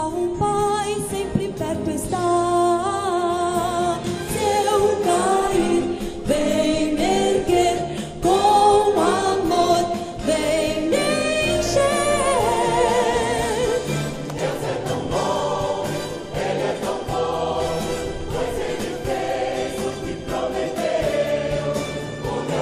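Mixed choir of men and women singing a Christian gospel song in Portuguese, with musical accompaniment.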